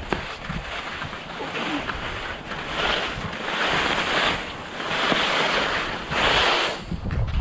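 Fischer skis sliding over soft, wet spring snow: a scraping hiss that swells and fades in surges about a second long. Wind rumbles on the microphone underneath.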